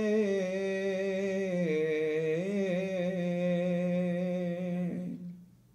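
A solo man's voice chanting haftarah cantillation in the Constantine Jewish tradition, drawing out one long melismatic note. The pitch dips and wavers about two seconds in, then holds, and the voice fades away near the end.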